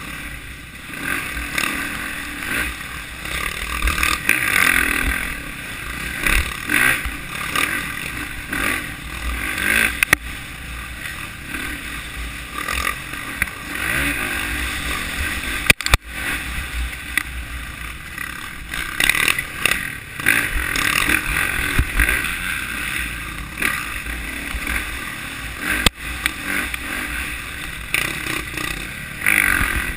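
Dirt bike engine heard from the bike itself, revving up and falling back every second or two as the rider works the throttle, over a steady low wind rumble on the microphone. A few sharp knocks cut through.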